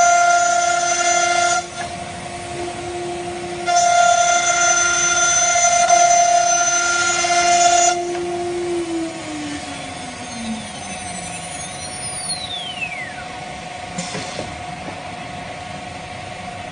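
CNC router spindle running at high speed with a steady whine, broken by two louder stretches of cutting, then winding down in pitch about nine seconds in. A brief burst of noise follows near the end.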